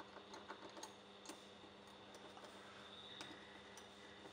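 Faint, irregular metallic clicks of an Allen key working in the recessed bolts of a metal 3D-printer extruder body as the bolts are undone, over a low steady hum.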